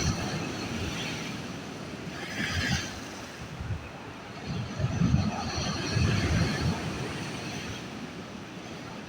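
Rough Black Sea surf: waves surging and breaking with a rushing hiss and low rumble, swelling louder about five to six seconds in.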